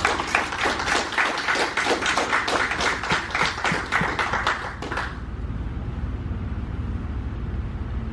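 A few people applauding with hand claps for about five seconds, then stopping. A low steady hum runs underneath and remains after the clapping ends.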